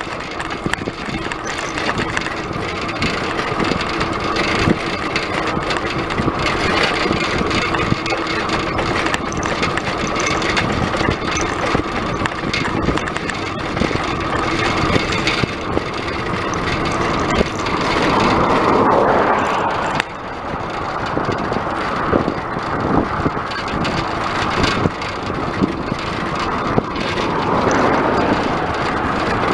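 Steady rushing wind and road noise from a bicycle riding along a paved highway, with a louder swell about eighteen seconds in.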